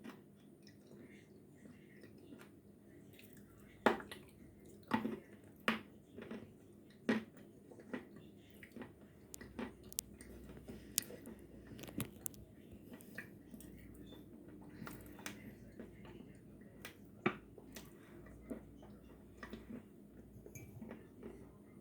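Close-miked crunching and chewing of sawn edible chalk: sharp crisp crunches, most frequent between about 4 and 12 seconds in and once more near 17 seconds, with softer wet chewing in between.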